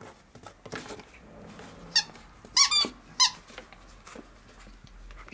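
Yellow squeaky toy chicken squeaking under a Chihuahua's bite: a few short, high squeaks about two to three seconds in, the middle one the longest.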